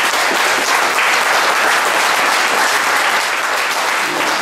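A large group of people clapping together in sustained applause, steady throughout.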